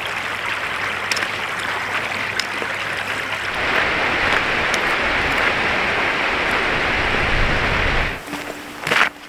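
Steady rushing water of a glacial river. It grows louder and fuller a little over a third of the way in, then falls away near the end, where a short steady tone and a click are heard.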